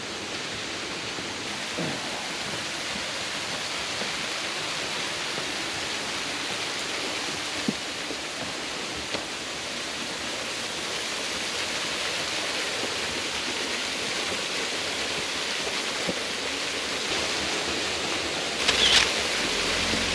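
Rushing water of a waterfall, a steady, even hiss with a few faint clicks and a brief louder burst near the end.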